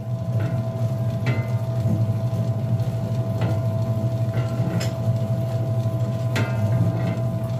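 Electric dough mixer running steadily with its dough hook in a stainless steel bowl: a low motor hum with a steady whine over it and a few light knocks. It is churning dry flour, margarine, eggs and milk that have not yet come together into dough.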